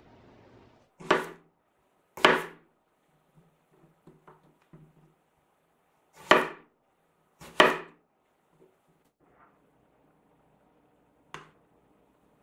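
Kitchen knife chopping through an eggplant onto a hard cutting board: four sharp chops in two pairs, each pair about a second apart, with a few faint taps between them and a lighter knock near the end.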